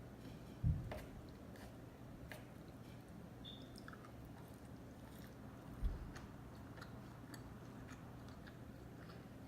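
Close-miked chewing of sushi, with soft wet clicks and squishes of the mouth. Two low thumps, about a second in and again near six seconds, are the loudest sounds.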